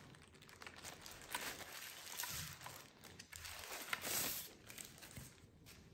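Thin plastic wrapping crinkling and rustling as a keyboard is slid out of it. A scatter of small clicks runs through it, with the loudest rustle about four seconds in.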